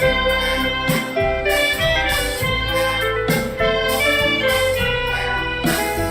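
A live church band playing an instrumental passage, with keyboard, bass and drums.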